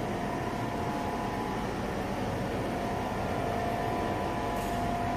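Steady machinery hum with a faint, even high whine.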